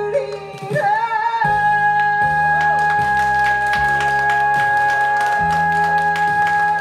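A woman singing a Korean song into a microphone over a karaoke backing track, holding one long note from about a second and a half in: the drawn-out final note of the song.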